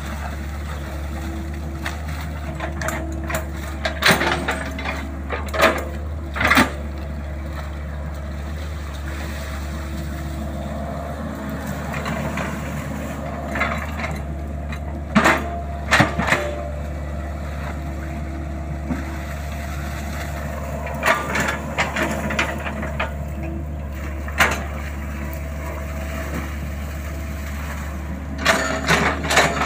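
Compact crawler excavator's diesel engine running steadily under working load while it digs wet peat, with scattered sharp knocks in small clusters, a few seconds in, around the middle and near the end.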